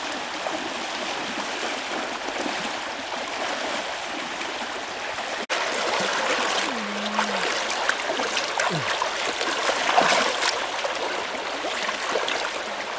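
Shallow rocky stream running steadily, with irregular small splashes as people wade and move their hands and feet through the water. There is a brief dropout about halfway through.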